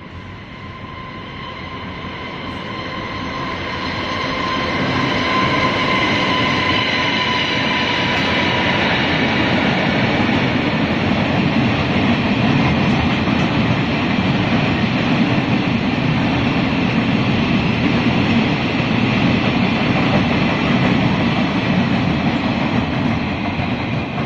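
Freight train rolling past: open wagons, covered wagons and empty flat cars clattering and rumbling on the rails, the noise building over the first few seconds and then holding steady. A thin high whine fades out about nine seconds in.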